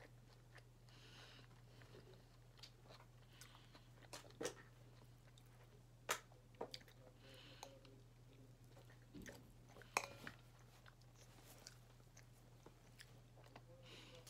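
Quiet chewing of food, with a few sharp clicks of a metal fork against a plate, the loudest about six and ten seconds in, over a faint steady hum.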